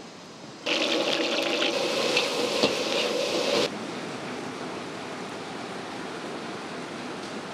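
A loud rushing noise with scattered crackles lasts about three seconds and then cuts off sharply. It gives way to a steady, quieter wash of harbour ambience over calm water.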